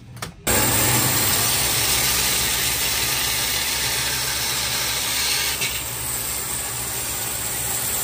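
Band saw running and cutting through a resin-soaked pine burl block, a steady loud hiss over a low motor hum that starts abruptly about half a second in.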